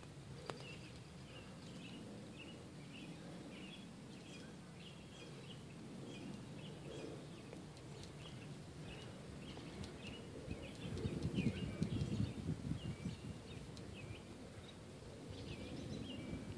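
Small birds chirping over and over, short calls one after another, over a low rumbling background noise that swells for a few seconds about ten seconds in.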